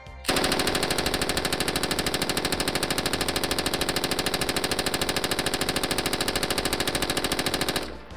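5.56 mm belt-fed SAW light machine gun firing one long, continuous full-auto burst at a rapid, even rate. It starts just after the opening and cuts off abruptly shortly before the end.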